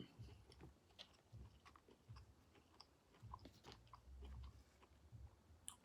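Faint close-miked chewing of a shrimp and vegetable hibachi meal: soft, wet mouth clicks and smacks scattered through, with quiet low thumps of the jaw.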